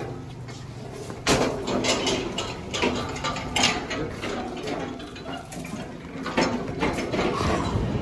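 Irregular clattering and knocking of a wheeled metal platform cart being moved across a concrete floor, with footsteps; the knocks start about a second in and come every fraction of a second.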